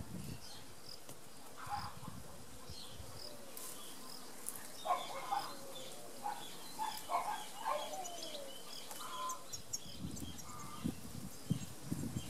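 Birds chirping and calling in short, scattered calls over steady outdoor background, with a few low thumps near the end.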